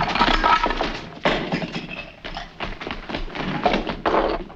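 Hurried footsteps and a run of knocks and thumps as three men scramble and jostle across a floor in a slapstick pile-up.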